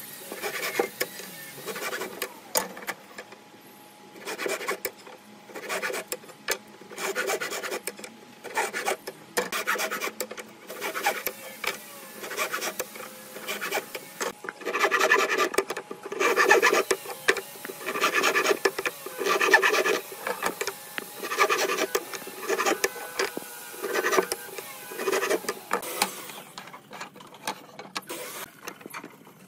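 Hand saw cutting notches across a clamped wooden strip, in repeated bursts of quick back-and-forth strokes with short pauses between cuts; the sawing dies away near the end.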